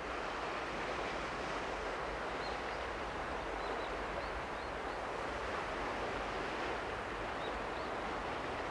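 Steady wash of sea surf, with faint short high bird chirps now and then.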